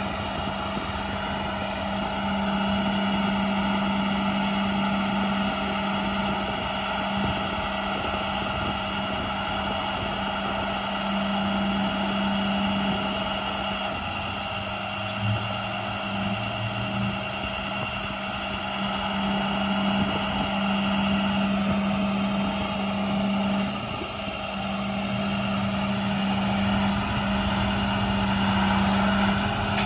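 2008 International 7400 sign-crane truck's diesel engine running steadily and driving the hydraulics while the Elliott Skywalk boom is lowered and retracted, with a steady hum.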